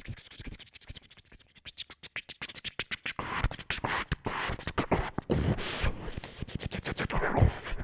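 A fast percussive hip-hop-style beat of rapid clicks and bass thumps. It starts faint and gets much louder and denser about three seconds in.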